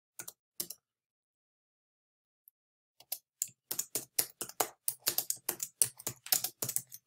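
Typing on a computer keyboard: two keystrokes, a pause of about two seconds, then a quick, uneven run of keystrokes.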